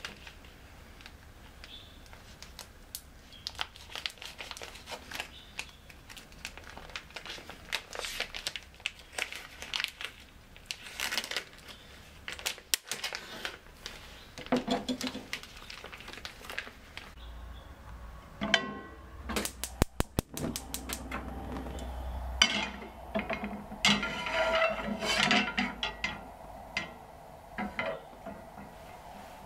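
Thin plastic cheese packaging crinkling and tearing as it is slit and peeled open with a chef's knife. Many short clicks and taps of the knife and pack on a plastic cutting board go with it, busiest in the second half.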